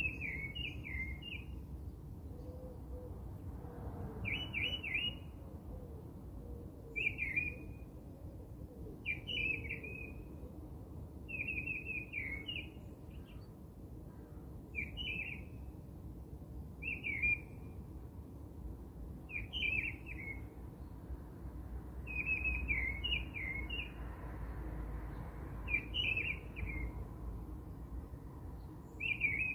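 A bird singing short chirping phrases of a few quick falling notes, repeated every two to three seconds, over a faint low rumble.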